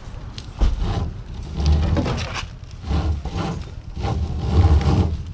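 Tow rope being knotted around a car's rear leaf spring: rope and hands rubbing and knocking, with irregular low rumbling bumps every second or so.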